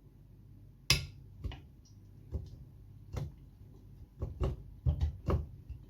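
Kitchen jars and a utensil being handled while Manuka honey is added to a jar of honey. A sharp click comes about a second in, then a string of light, irregular clicks and taps.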